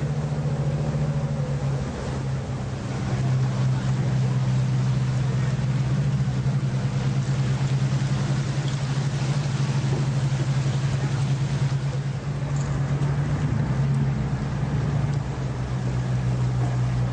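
Tour boat's engine running with a steady low drone, over a constant hiss.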